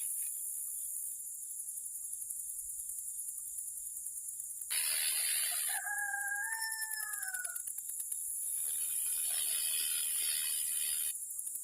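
A rooster crowing once, a single call of about two seconds that falls off at the end, about six seconds in. Under it runs a steady high insect chirring, with stretches of hiss before and after the crow.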